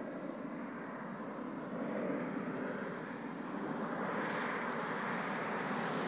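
Jet airliner flying overhead: a steady rush of engine noise that swells louder and brighter from about two seconds in, and again near four seconds.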